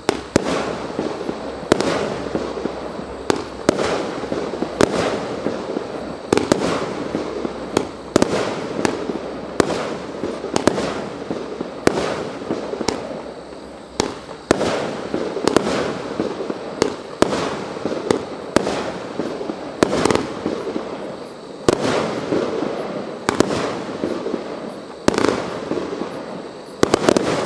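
A 25-shot, 1-inch consumer fireworks cake firing its shots one after another, about one a second. Each shot is a sharp launch bang followed by the shell bursting overhead.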